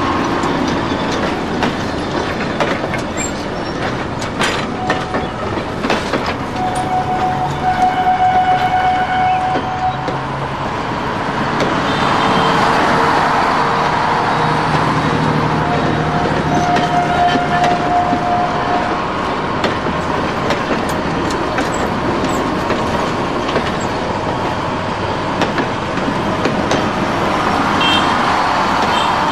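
Busy street and traffic ambience, a steady noise of vehicles, with a long vehicle horn sounding about seven seconds in and another about sixteen seconds in, and a few clicks and knocks.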